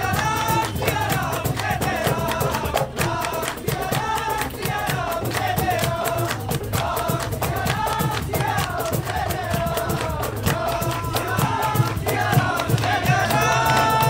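A group sings a Hindi devotional bhajan in chorus, with strummed acoustic guitars, a dholak drum and hand clapping in time.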